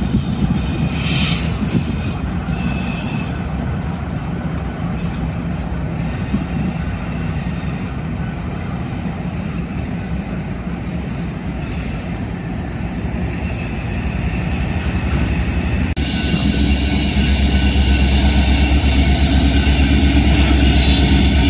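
Freight train rolling past, with wheels squealing near the start. After a cut about 16 seconds in, BNSF diesel locomotives are running, with a louder, deeper rumble.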